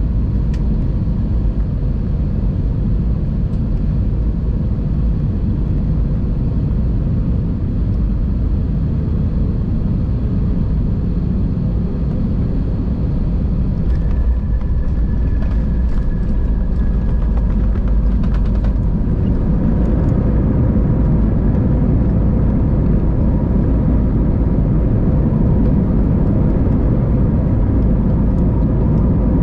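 Airbus A320 cabin noise heard from a window seat behind the wing: a steady rumble of engines and airflow on final approach. About halfway through the jet touches down on the runway with a few knocks and rattles, then the rumble grows louder as it rolls out with its spoilers raised.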